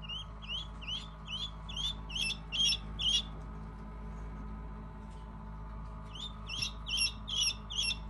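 Newly hatched chick peeping: a run of about eight short, rising chirps, two or three a second, then a pause of about three seconds and five more near the end.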